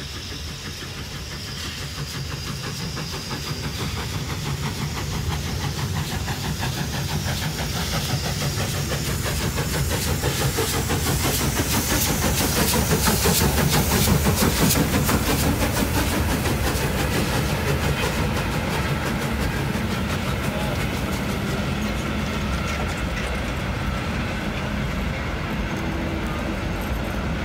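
Steam locomotive approaching and chuffing past at close range, growing louder to a peak about halfway through. Then its train of passenger coaches rolls by on the rails.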